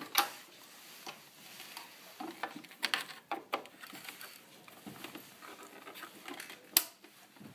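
Handling noise from a Philips portable record player's plastic case: light rubbing and scraping with scattered sharp clicks, a few in the middle and the loudest near the end, as its compartments are opened and shown.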